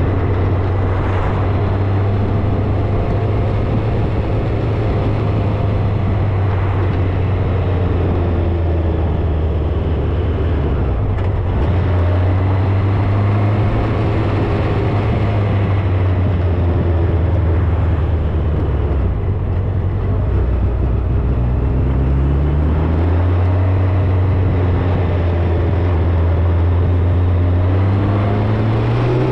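Motor vehicle engine running while driving, with a steady low note for long stretches, a drop and gradual rise around two-thirds of the way through, and a climbing pitch near the end as it accelerates.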